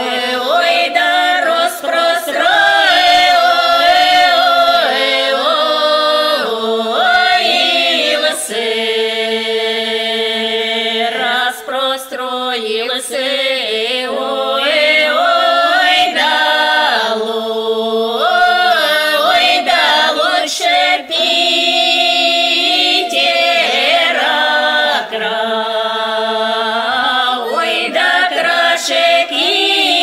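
Unaccompanied women's choir singing a drawn-out northern Russian folk song in the Pinega tradition. The voices hold long notes together and slide from pitch to pitch.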